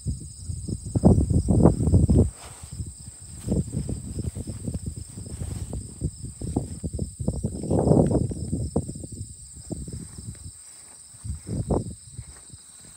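Insects trilling steadily, with irregular low rumbling and rustling underneath that swells about a second in and again around eight seconds in.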